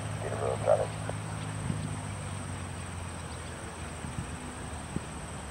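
Low, steady drone of a propeller aircraft's piston engines, weakening after about two seconds, with a brief burst of voice about half a second in.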